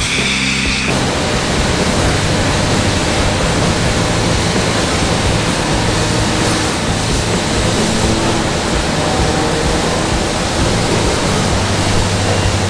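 Steady loud rushing of a coin-op car wash vacuum running, over background music. The rush starts about a second in and stops near the end, leaving the music.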